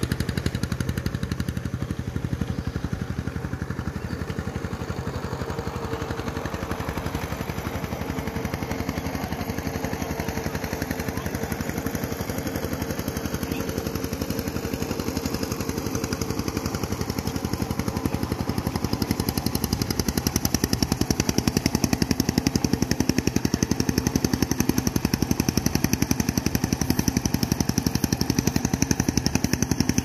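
A small engine running steadily with a fast, even rattle, growing somewhat louder about two-thirds of the way through.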